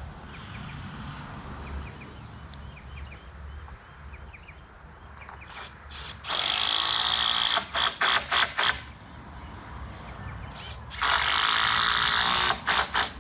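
A handheld power tool runs in two bursts of about a second and a half, each followed by several short trigger blips. Birds chirp faintly in between.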